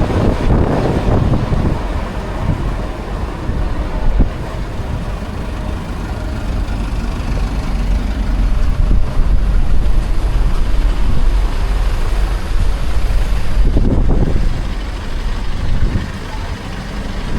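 Steady low rumble of a moving ferry's engines, with an even rushing noise of wind across the microphone.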